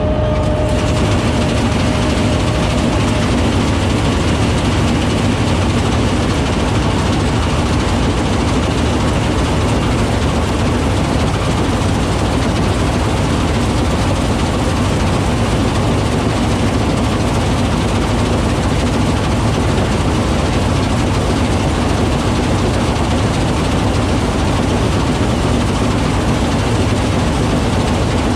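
Combine harvester cutting standing grain: the steady, loud running of the engine and threshing works, with the header's reel, cutter bar and auger working the crop.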